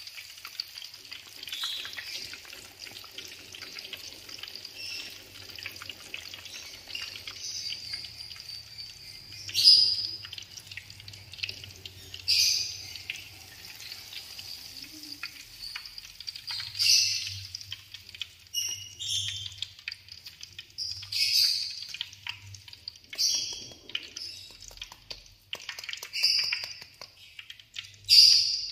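Oil sizzling and crackling steadily as avocado halves deep-fry. From about ten seconds in, a series of about eight sharp metallic clinks from steel tongs knocking on the aluminium skimmer and pan as the fried avocados are lifted out.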